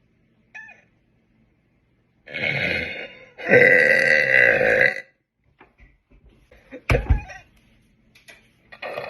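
A young woman burps loudly twice: a shorter burp about two seconds in, then a longer, louder one lasting about a second and a half. A sharp thump follows near the end.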